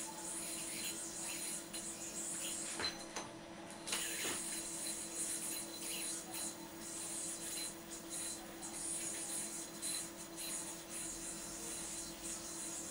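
String of a spinning metal yoyo rubbing and hissing as it runs through string tricks, with the scratchy sound swelling and fading as the string moves and a few sharp clicks as the yoyo or string is caught.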